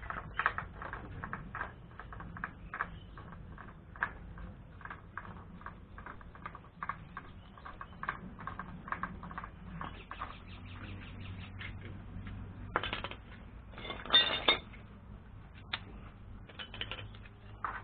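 Irregular metallic clicks, taps and scrapes from hand work on a hand pump's rusted iron pipe and fittings. Two louder, longer scrapes come about two-thirds of the way through.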